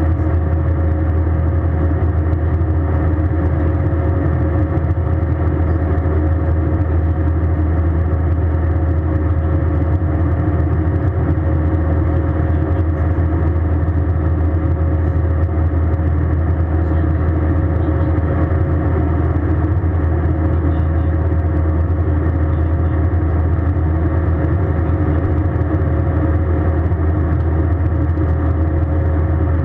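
Airbus A320 cabin noise: a steady, loud drone of the jet engines and airflow, heavy in the low end, with a faint constant tone above it.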